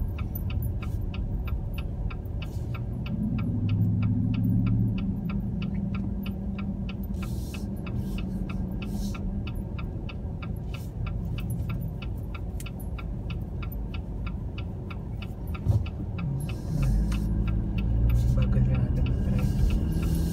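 A car's turn-signal indicator ticking evenly inside the cabin, about three ticks a second, over the low rumble of the engine and road. The engine hum swells briefly twice, once a few seconds in and again near the end.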